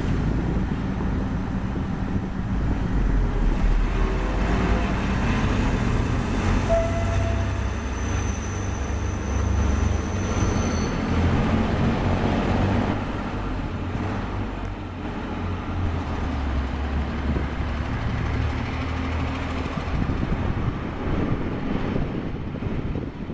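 FER ALn 663 diesel railcar train pulling away, its engines working hard under load, the engine note rising and falling as it gathers speed. About eight seconds in, a thin high squeal lasts a few seconds as it crosses the points. The sound fades near the end as the train draws away.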